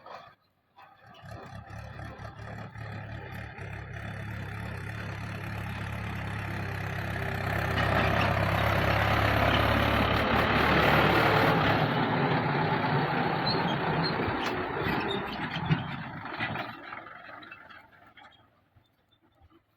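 A heavy vehicle's diesel engine running, growing steadily louder over several seconds and then fading away, as when a machine comes close and moves off again.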